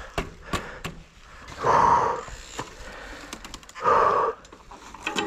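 Mountain bike rolling over a leaf-covered forest trail, with frequent small knocks and rattles from the bike over bumps. Two loud, short rushing sounds come about two seconds apart, near the middle and after four seconds.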